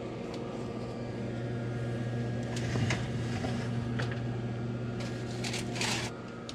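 A steady low electric hum from the open wall oven, with a few metal scrapes and foil rustles as a foil-covered baking tray is slid out along the oven rack. The hum cuts off about six seconds in.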